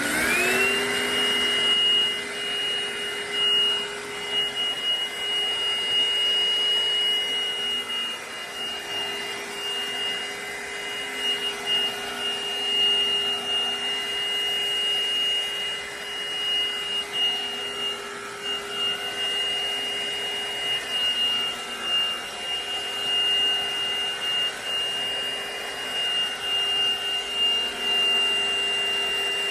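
Black+Decker PowerSeries+ 20V MAX cordless stick vacuum running: the motor comes up to full speed about a second in, then runs steadily with a high-pitched whine.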